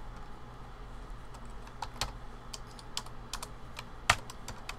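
Computer keyboard being typed on: irregular key clicks, a few a second, with one louder keystroke about four seconds in, over a low steady hum.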